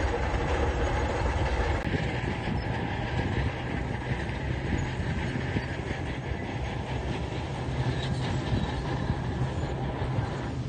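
Diesel engine of a tracked construction machine running steadily under load, with a continuous clatter of small knocks.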